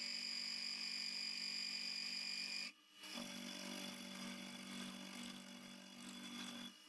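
Milling machine running as an end mill machines the edge of a stainless steel plate: a steady motor hum with a high whine. It cuts out briefly just under three seconds in and resumes quieter.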